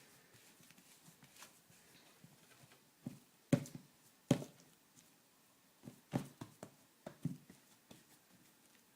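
Scattered soft knocks and taps as sticky cookie dough is pressed and spread by hand into a metal baking pan, the loudest two in the middle.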